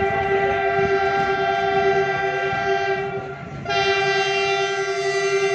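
A train horn sounding long and steady over a low rumble. It breaks off briefly about three seconds in, then sounds again.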